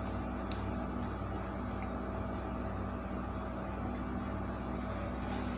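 Steady low hum with a faint hiss of background noise, unchanging throughout.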